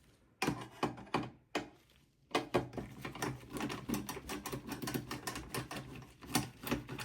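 A Phillips screwdriver backing a screw out of the steel drive cage inside a desktop PC's case: a few separate clicks, then from about two seconds in a fast, continuous run of small metallic clicks lasting about five seconds.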